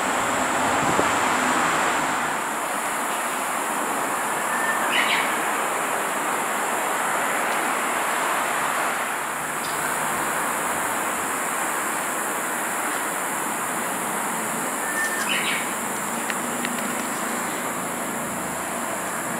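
Steady rushing outdoor background noise, with two short high chirps, one about five seconds in and one about fifteen seconds in.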